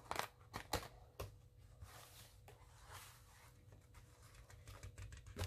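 Faint rustling and a few light taps of paper journal pages being handled and turned, with the clearest taps in the first second or so.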